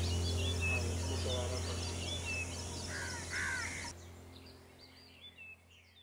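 Several birds chirping and calling over a steady low hum, with a brief burst of arched calls a little past halfway. The sound fades out toward the end.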